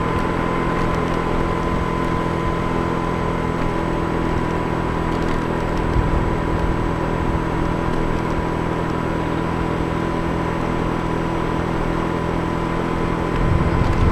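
Motorcycle engine running steadily at riding speed, with a thin steady whine above it and a rush of road and wind noise. The engine note changes shortly before the end.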